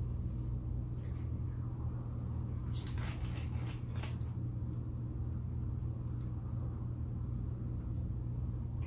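A steady low hum, with scattered small clicks and smacks of someone eating over it, a cluster of them around three seconds in.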